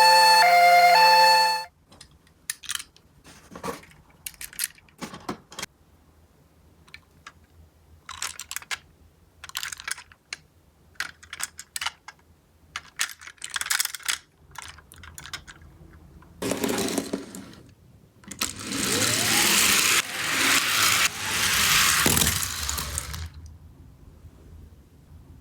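A toy ambulance's electronic two-tone siren stops after about two seconds. Scattered light clicks and clinks of small toy minicars being handled follow, then two stretches of louder continuous rattling and rolling noise from about sixteen to twenty-three seconds in.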